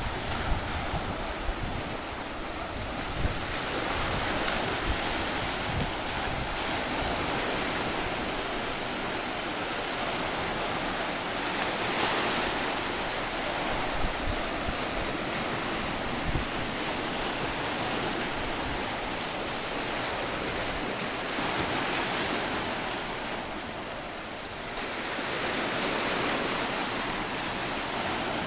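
Small waves breaking and washing up a sand beach, a steady rush of surf that slowly swells and eases, with wind buffeting the microphone.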